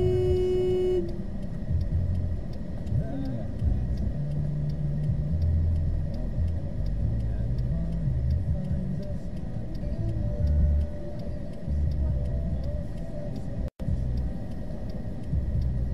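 Low engine and traffic rumble heard from inside a car through a dashcam microphone, with a steady car-horn tone that cuts off about a second in.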